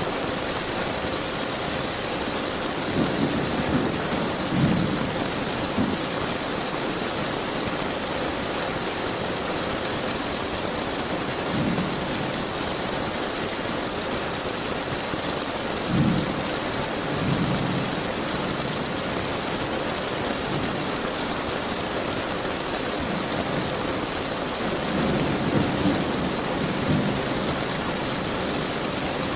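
Steady heavy rain hiss, with low rolls of thunder rumbling in and out a few times: a few seconds in, around the middle, and near the end.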